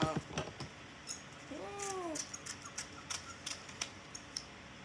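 Construction paper being handled: scattered light clicks and taps of paper. About one and a half seconds in, a brief hummed voice sound rises and falls.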